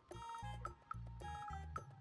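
Soft background music with a repeating bass line and light, short, ticking notes over it.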